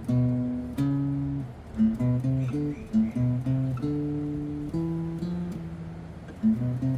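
Guitar playing the A Phrygian scale (A minor with a B flat), one plucked note after another, with a few quicker notes in the middle and near the end.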